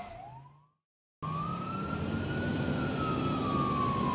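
Emergency-vehicle siren: the end of one falling wail, a brief cut to silence, then a new slow wail that rises and falls, over a low steady hum.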